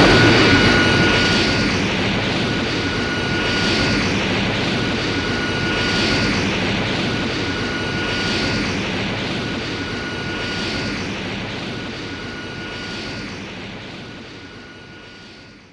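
Mechagodzilla sound effect from the 1993 film: a steady jet-engine-like rush with a high whine running through it and a faint pulsing about every two seconds, slowly fading out near the end.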